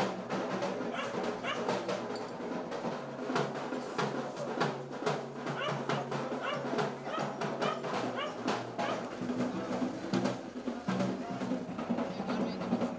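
Drums beaten in quick, dense, irregular strokes, with a low held tone underneath that grows stronger in the second half.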